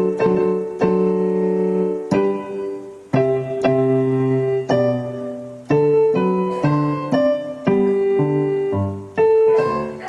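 Solo piano music: a slow melody of notes and chords, each struck and left to fade.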